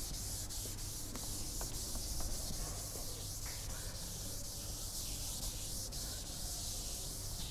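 Chalkboard eraser wiping chalk off a chalkboard, a steady scrubbing hiss that stops near the end.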